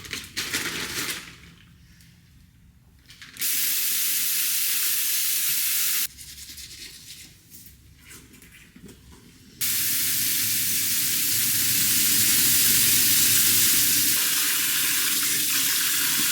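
Water from a sink tap running in two steady stretches: turned on a few seconds in and off again about six seconds in, then on again a few seconds later and running on to the end, with quieter handling noise between them.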